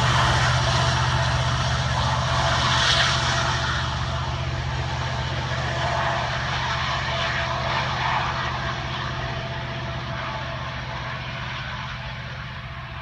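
Diesel locomotive at the rear of a freight train running steadily, its engine's low hum under the noise of wheels on rail, fading gradually as the train pulls away.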